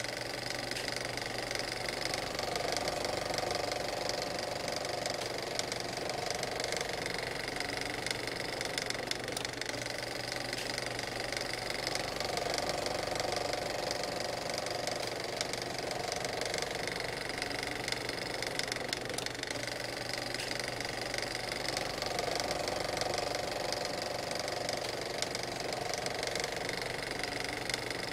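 A motor running steadily with a fast, even rattle that swells a little every few seconds.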